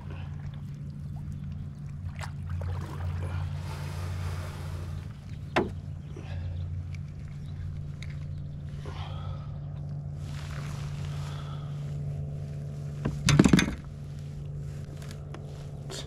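Handling noises from a small bass being unhooked and held aboard a fishing kayak, with a sharp click about five and a half seconds in and a loud knock a couple of seconds before the end, over a steady low hum.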